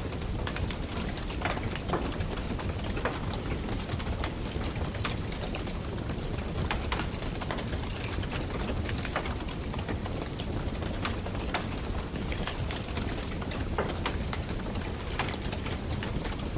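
Wood campfire burning: a steady low rush of flame with frequent, irregular sharp crackles and pops.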